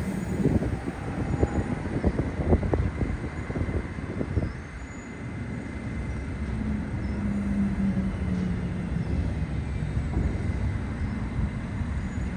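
New York City subway train in a rail yard: irregular knocks and clatter, typical of wheels over rail joints and switches, for the first four seconds or so, then a steady low hum.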